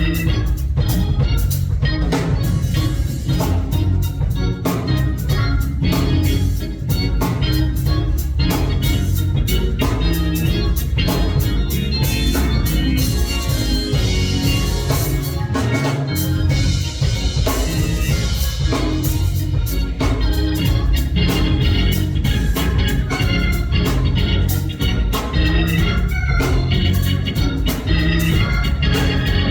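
Organ music with a drum kit playing a steady beat, a full, bass-heavy sound with sustained chords.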